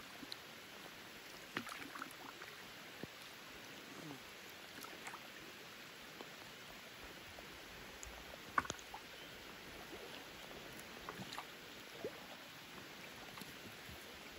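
Rain falling steadily on a lake's surface, a faint even patter, with scattered small splashes and knocks, the loudest about eight and a half seconds in, as a fishing net is pulled into a wooden rowboat.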